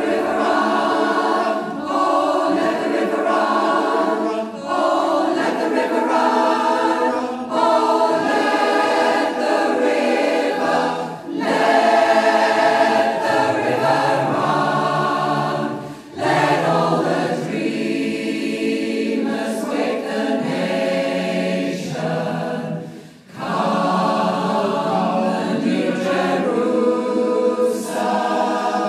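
Choir singing as background music, several voices in harmony. It briefly dips twice, near the middle and about two-thirds of the way through.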